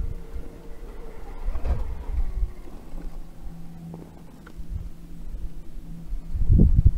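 Axial SCX10.2 RC rock crawler's electric motor and geared drivetrain whining steadily as it crawls slowly up a rock ledge. Louder low knocking and rumble come in near the end as it climbs.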